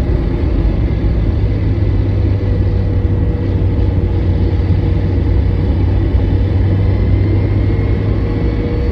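Vehicle engine running steadily, a low drone with a faint steady whine above it; the owner suspects the sound is an abnormal noise from the clutch.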